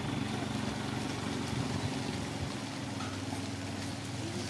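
An engine running steadily at idle, a low even hum.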